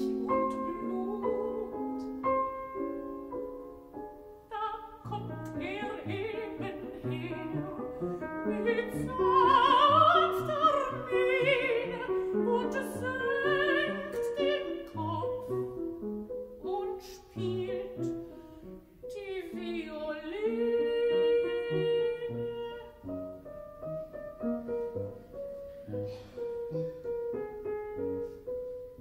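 Mezzo-soprano singing a German art song with wide vibrato, accompanied by piano.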